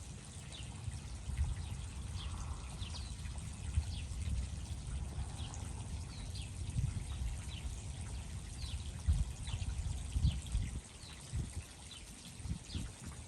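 Outdoor ambience: a low, uneven rumble, like wind buffeting the microphone, under a small bird's short, high chirps that repeat about once a second.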